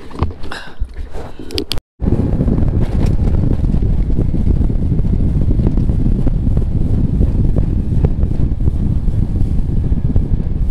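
Steady, loud wind rush buffeting the microphone as a bass boat runs at speed across open water, starting abruptly about two seconds in.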